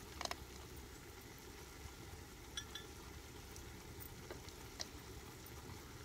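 Faint stirring of carrot halwa in a large steel pot while raisins are spooned in, with a few soft clinks of metal utensils against the pot and a small bowl, over a low steady background.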